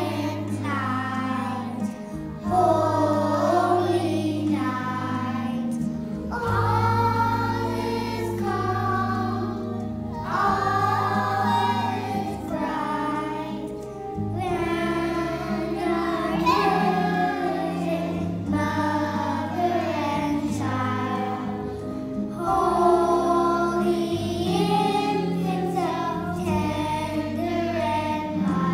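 Group of young children singing a Christmas song together, over an accompaniment of long held low notes.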